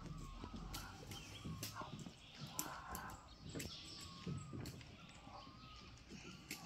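Faint outdoor ambience with small birds calling over and over in short, wavering chirps, and scattered sharp clicks.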